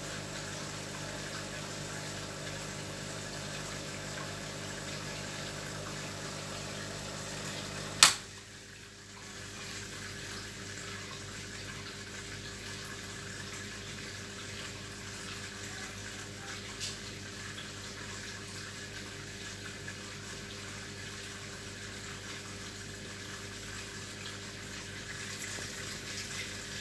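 Steady hum of a crab tank's pump with running, bubbling water. A single sharp click about eight seconds in is the loudest sound, with a fainter click near seventeen seconds.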